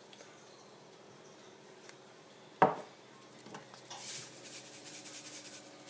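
A sharp knock about two and a half seconds in, then nearly two seconds of dry, gritty rasping from a pepper mill grinding pepper over the frying pan.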